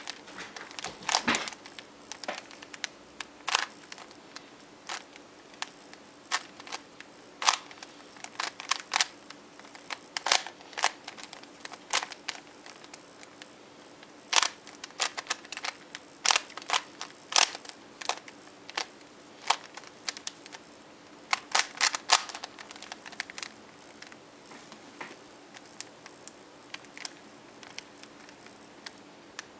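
Plastic Rubik's Cube being turned by hand during a solve: irregular sharp clicks of the layers snapping round, sometimes several in quick succession, with short pauses between.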